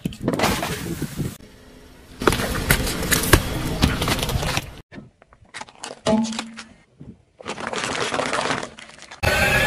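Crunching and cracking of objects being crushed under a car's tyre, in several separate bursts that start and stop abruptly with short silent gaps between them.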